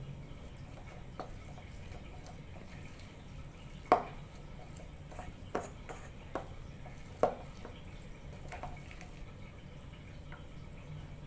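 Spatula stirring a thick banana-and-flour dough in a stainless steel bowl, with about six sharp knocks of the spatula against the bowl, the loudest about four seconds in. A low steady hum runs underneath.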